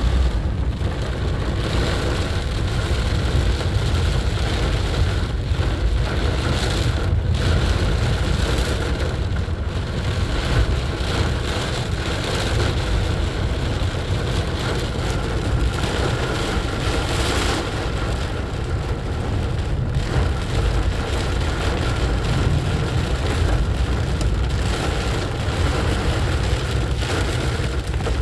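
A car driving in heavy rain: a steady low rumble of engine and road under an even wash of rain on the car.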